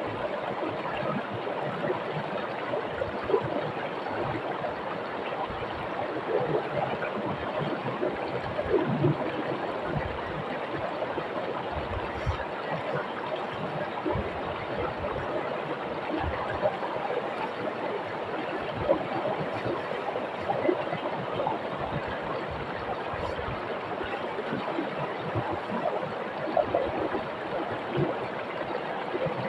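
A rocky river flowing over and between stones: a steady rush of water with small irregular splashes within it.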